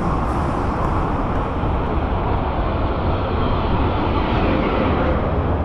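Steady wind rumble on the action camera's microphone, with road noise, while riding an electric scooter.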